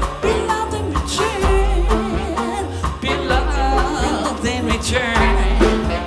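Live jazz band playing, with an upright double bass holding low notes under a wavering melody line.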